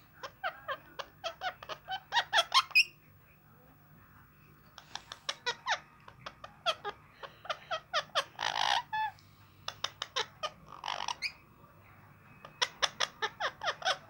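Rose-ringed parakeets chattering in quick bursts of short, sharp chirps and squeaks, with two longer raspy squawks about two-thirds of the way through.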